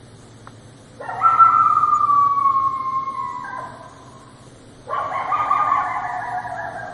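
Coyote howling: two long howls that slowly fall in pitch, the first starting about a second in and the second about five seconds in.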